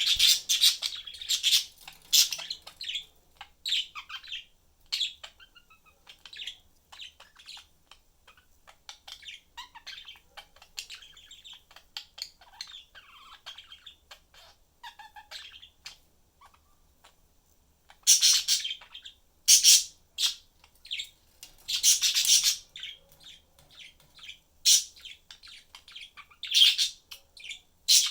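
Pet budgerigars chirping and chattering: a run of short, high-pitched calls, with loud clusters of sharp calls at the start and again in the last third.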